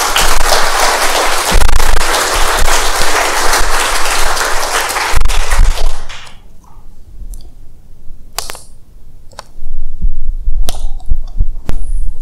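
Audience applauding: dense clapping that dies away about six seconds in, followed by a few scattered knocks and thumps.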